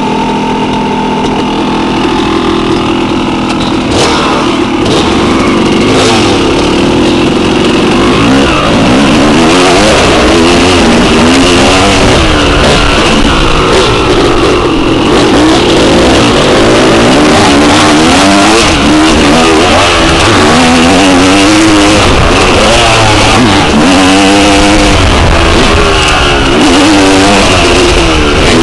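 Dirt bike engine being ridden along a dirt trail. Its pitch is fairly steady for the first few seconds, then rises and falls over and over as the throttle opens and closes.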